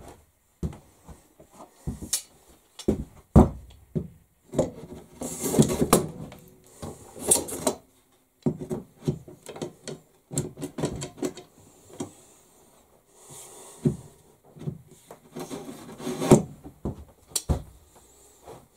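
Workshop handling sounds on a wooden workbench: irregular knocks, clunks and scraping as a metal rod is set into a hole in the benchtop and a clamp is handled. There are a few longer scrapes partway through.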